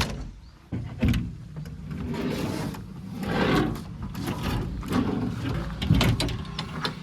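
JCB 3DX backhoe loader's diesel engine running under load, with repeated metallic knocks and clanks from the working machine. There is a heavy thump about a second in and another about six seconds in.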